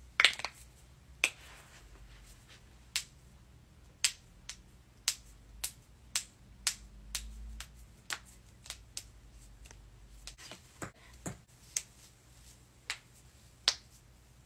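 Joint cracking: a run of some twenty sharp, separate pops at irregular gaps of about half a second to a second, the loudest at the very start.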